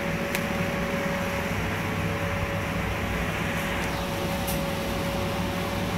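Steady machine hum with a constant whine, with a few faint light clicks.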